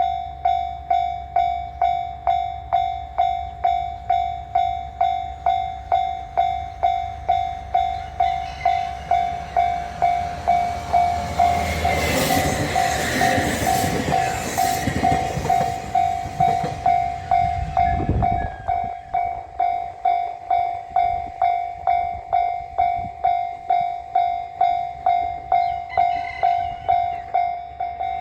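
Japanese level-crossing alarm ringing steadily at about two strikes a second. A JR commuter train passes through from about eight seconds in, its wheels clattering over the rails loudest around twelve to fifteen seconds in, with a low rumble fading away by about nineteen seconds.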